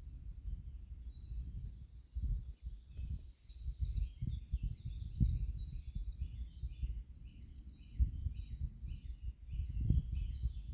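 Wind buffeting the microphone in uneven gusts, with a small songbird singing a long run of fast, high notes from about a second in until near the end.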